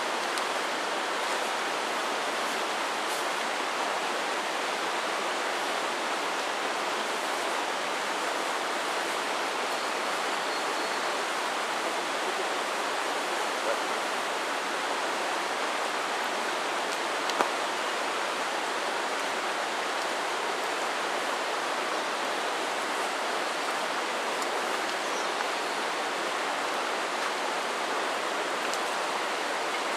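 Steady rush of river water, with a couple of faint clicks partway through.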